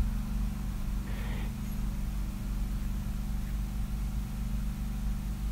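Steady low machine hum made of several constant tones. About a second in comes a brief scratch of an ink pen on drawing paper.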